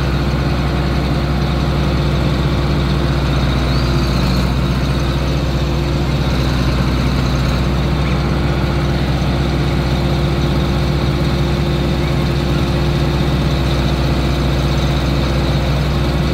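John Deere 8640 four-wheel-drive tractor's six-cylinder diesel engine idling steadily, heard close up from the tractor.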